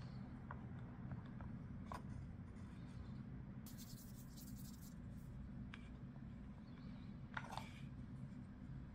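Faint clicks and scraping as hands and a wooden modelling tool work small pieces of clay on a wooden board, with a longer scraping rustle about four seconds in, over a steady low hum.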